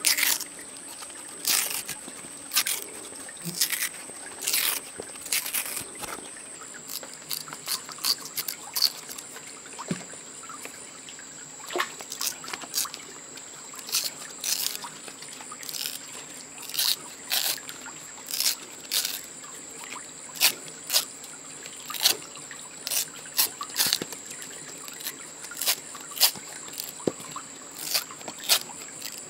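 Irregular sharp crackles and snaps, about one or two a second, as a long fibrous plant strip is split and peeled apart by hand. Water trickles underneath, and a steady high whine runs throughout.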